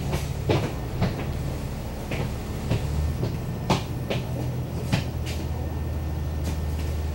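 Cabin sound of a slow-moving vehicle: a steady low hum with irregular sharp clicks and knocks, roughly one every second.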